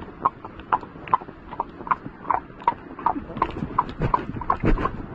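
Unshod horse's bare hooves clip-clopping on wet asphalt at a walk, an even run of sharp clicks about two to three a second.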